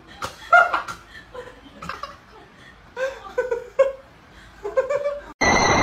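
A person laughing and giggling in short bursts. Near the end a loud, steady horn blast cuts in abruptly.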